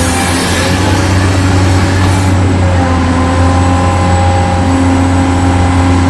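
Electric motors and plastic gearing of a remote-control toy construction vehicle whining steadily, with a change in the whine about three seconds in as another motor starts.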